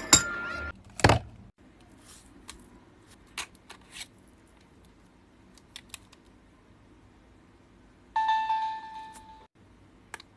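Small items and packaging being handled: scattered light clicks and taps, with one sharp knock about a second in. About eight seconds in comes a brief ringing tone with a clatter.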